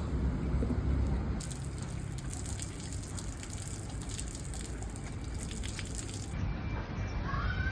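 Water gushing with a steady hiss. It starts about a second and a half in and cuts off suddenly about six seconds in.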